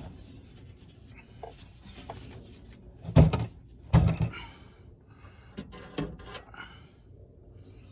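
Two loud knocks a little under a second apart, then a few lighter clicks and rattles: hard parts being handled against a car door during glass replacement.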